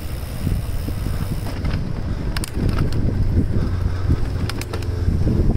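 Wind rumbling over the microphone while a touring bicycle rolls along a concrete path, with a few short sharp clicks about two and a half seconds in and again near the end.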